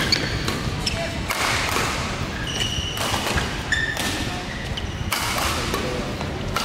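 Badminton doubles rally: rackets strike the shuttlecock about once a second, each hit echoing in the hall, with short high squeaks of shoes on the court mat and voices in the background.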